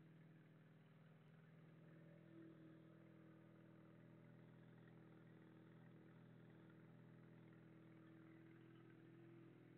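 Honda CBR 450 motorcycle engine idling steadily through a Roncar aftermarket sport exhaust, heard faintly.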